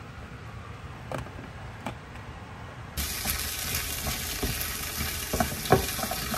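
A pot of soup simmering quietly with a couple of light clicks, then about three seconds in, rice cakes and gochujang frying in oil in a pan: a steady sizzle with a silicone spatula stirring and scraping through them.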